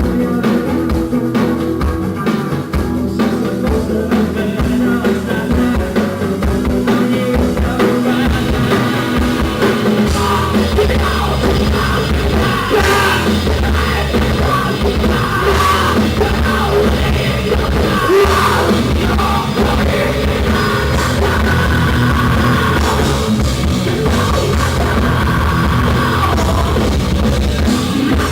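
Rock band playing live: drum kit and electric guitars, the low end filling out and the band playing heavier from about eight to ten seconds in, with singing at times.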